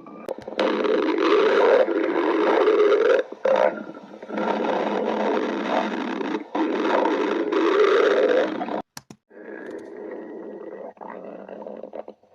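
A person's stomach growling loudly close to the microphone: three long gurgling growls, each a couple of seconds, with a pitch that wavers up and down, then a quieter, longer rumble near the end.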